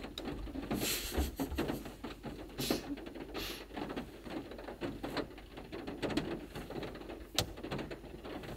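Rain pattering steadily, a dense spray of small irregular drops. Over it come a few brief rustles of cloth as a garment is pulled onto a dog, and a single sharp click near the end.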